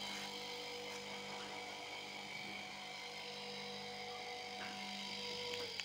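Electric motor of a 220 V sprayer pump running with a steady hum, cut off abruptly near the end as the pump is switched off from the remote control.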